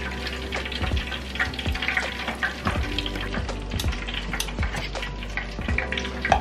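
Hot oil sizzling around onion slices in a deep square frying pan, with irregular small crackling pops.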